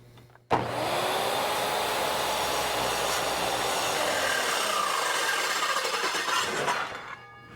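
Circular saw cutting steel plate: it starts abruptly, its motor pitch dips as the blade takes load, then holds, and after about six seconds it stops and winds down.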